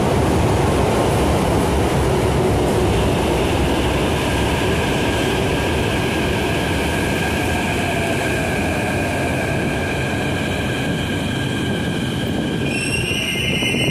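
São Paulo Metro Line 5-Lilás train running past close along the platform: a loud, steady rumble of wheels on rail. Steady high squealing tones join a few seconds in and grow stronger near the end.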